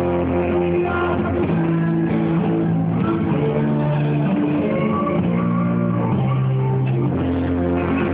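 Music playing at a steady level, with held notes over a low line that steps from note to note.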